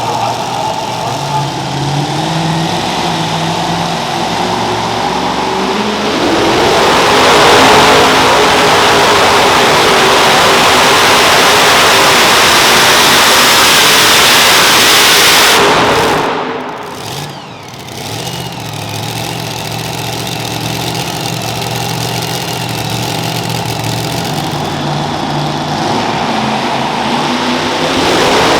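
Super modified two-wheel-drive pulling truck engine: a low rumble at first, then very loud at full throttle for about nine seconds during a pull, cutting back sharply, then running lower and building again near the end.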